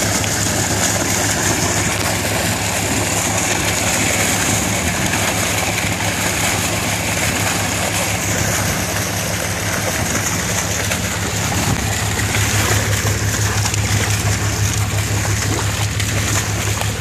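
A fish-stocking truck runs with a steady low hum while water and trout gush out of its discharge pipe and splash into the lake shallows.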